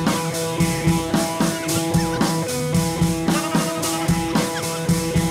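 Background music with guitar and a steady drum beat.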